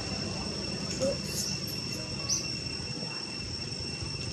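Steady high-pitched insect drone with a second, lower tone beneath it, over a low outdoor hiss, with a few short chirps about a second and two seconds in.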